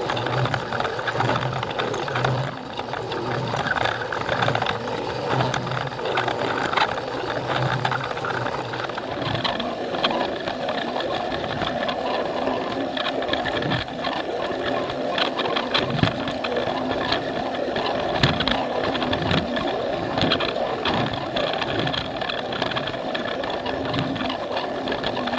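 Battery-powered Plarail toy train running on plastic track: its small motor and gears whirring steadily, with quick clicks and rattles from the wheels over the track joints. The running sound changes in pitch about ten seconds in.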